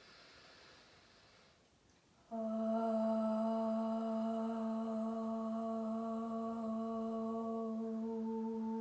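A woman's soft in-breath, then about two seconds in a long hum on the out-breath, held on one steady pitch: sound breathing in a pregnancy yoga exercise.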